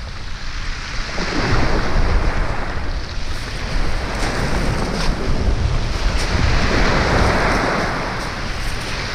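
Sea waves breaking and washing on the beach, swelling and easing, with wind buffeting the microphone.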